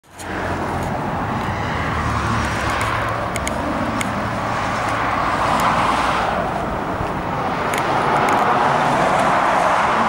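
Steady outdoor background noise, a continuous hiss with a low rumble like road traffic, with a few faint clicks.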